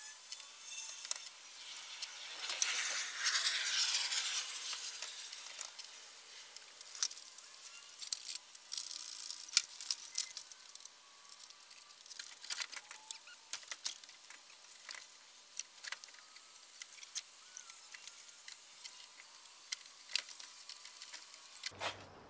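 Light metallic clinks, knocks and jangling from hand work in an engine bay and the engine hoist and its chain being moved, with a louder rustling, hissing stretch about two to five seconds in.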